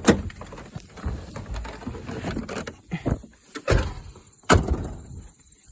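Vehicle door being opened and shut: several sharp clunks and knocks, the loudest about four and a half seconds in.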